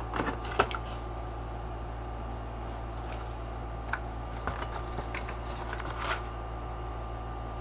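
Light handling of a cardboard box and packaging: a few sharp clicks and taps in the first second, then scattered soft ticks and rustles, over a steady low hum.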